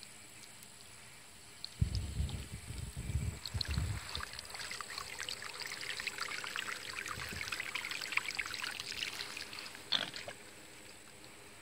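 Water trickling and crackling into dry fast-setting post concrete mix around a wooden post, a fine steady patter for several seconds. A few low bumps come about two seconds in, and a sharp knock about ten seconds in as the plastic watering can is picked up.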